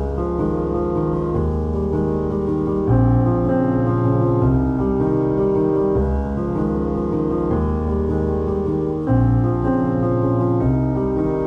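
Slow background piano music: held chords that change every second or two over a sustained low bass.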